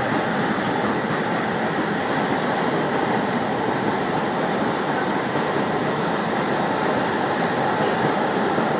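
Steady running noise of a train moving along the track at speed, heard from aboard the train.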